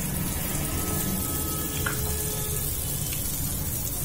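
Hot oil sizzling steadily in a kadai as a tempering of mustard seeds, asafoetida and turmeric fries, over a low steady hum. A faint tick comes about two seconds in.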